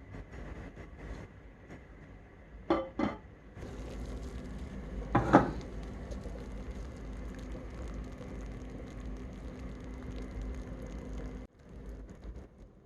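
Household clatter: two sharp knocks, then a steady hiss with one louder clank, the hiss cutting off suddenly near the end.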